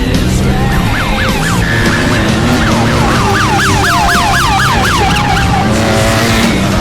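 Loud music with a siren-like sound over it: quick, repeated falling wails, several a second, running for a few seconds through the middle.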